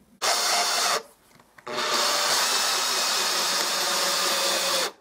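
Power drill-driver driving a screw into wood: a short burst, then a longer steady run of about three seconds as the screw goes home.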